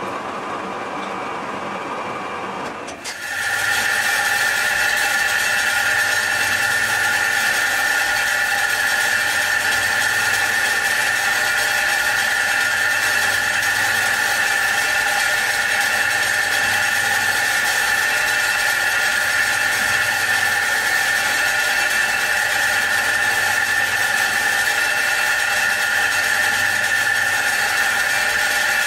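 Tool and cutter grinder's wheel surface-grinding a steel vise plate: a steady, unchanging whine over a hiss of grinding. It starts about three seconds in, after a quieter stretch of other machine noise.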